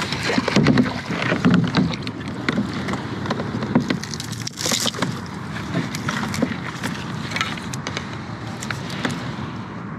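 Dry marsh grass and reeds rustling and scraping along a plastic kayak hull, with many small crackles and snaps, as the kayak is pushed through a narrow marsh channel. Wind buffets the microphone.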